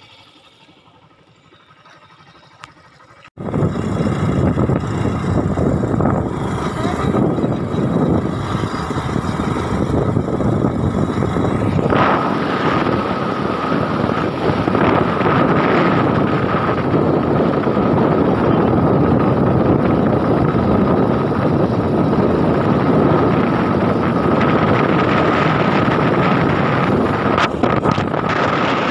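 Wind buffeting the microphone over the running of a moving road vehicle, starting abruptly about three seconds in after a quieter stretch. A steady high whine runs through the noise from about twelve seconds in.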